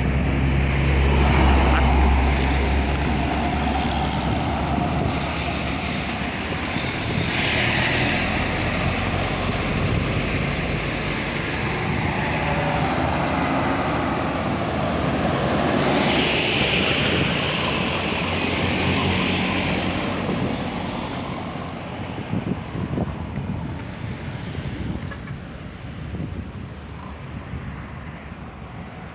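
Loaded diesel cargo trucks driving past one after another, engines running and tyres on the road. The deep rumble is loudest in the first few seconds, swells again with further pass-bys, and thins out near the end.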